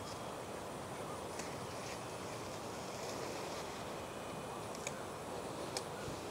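Steady outdoor background hiss, with a few faint sharp snaps as pumpkin leaf stems are broken off the vine by hand, two of them near the end.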